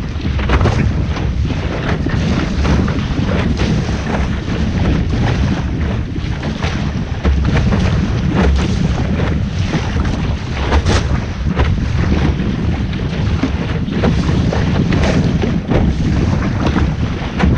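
Strong wind buffeting the microphone aboard a sailing boat under way: a constant low rumble with frequent crackles, mixed with rushing and splashing water.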